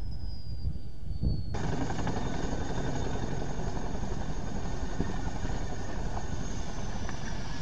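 CH-47 Chinook tandem-rotor helicopter on the ground. At first a low rumble with a high turbine whine slowly falling in pitch; then, about a second and a half in, an abrupt cut to the helicopter running, with a steady high turbine whine over rotor and engine noise.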